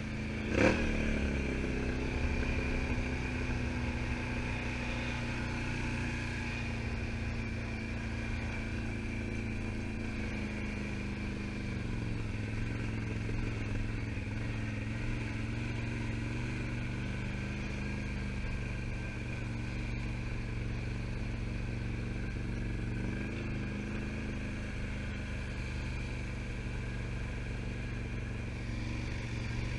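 ATV engine running at a steady speed, with a sharp knock about half a second in. The engine note dips briefly twice, once midway and once later on.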